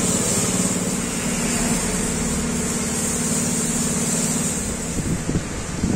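Pressure washer running, a steady motor-and-pump hum under the hiss of the water jet spraying the car body. The hum stops about five seconds in, leaving the uneven splash and hiss of water.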